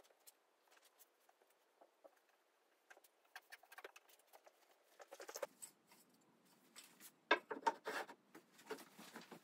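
Faint scattered taps and rubbing from an oak picture frame being handled. About three quarters of the way through comes a quick run of louder wooden knocks as the frame is moved about on a wooden workbench.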